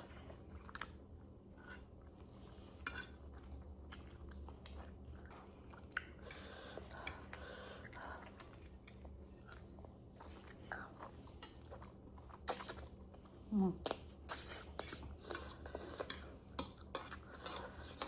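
Close-up chewing of food, with scattered clicks and taps of utensils against dishes that get louder and more frequent in the second half.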